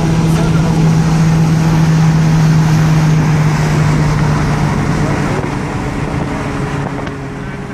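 Car engine and road noise heard from inside the cabin: a steady engine hum over tyre and wind rush. Around five seconds in, the hum drops in pitch and the noise eases a little.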